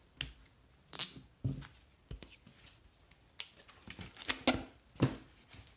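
Cardboard backing boards and a rigid mailer being handled as a comic is worked out of its packing: a string of short, irregular scrapes, rustles and taps, the sharpest about a second in and again near the end.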